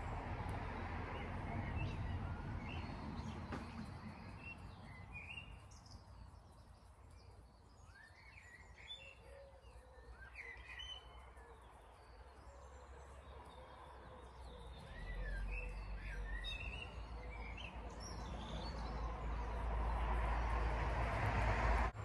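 Small birds chirping and singing in scattered short calls over a low outdoor rumble, which grows louder in the last few seconds.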